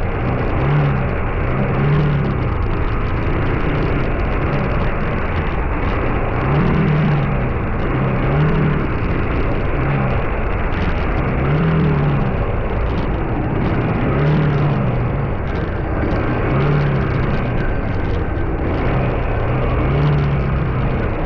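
Steady road noise from a vehicle being driven, with a low hum that swells and fades every couple of seconds.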